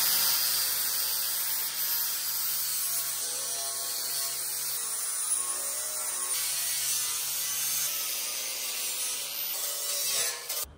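Handheld grinder with a sanding disc running against a chrome steel bumper: a steady high hiss of abrasive on metal over the motor's low hum. It is scuffing the chrome down to bare metal ahead of primer. The sound cuts off suddenly near the end.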